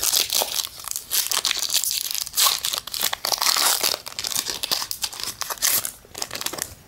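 Foil booster pack wrapper crinkling and being torn open, a dense run of crackles and rips that dies down about six seconds in.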